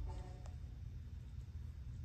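A lull between pieces of music: the last note dies away at the start, leaving a quiet, steady low rumble of room tone, with one faint click about half a second in.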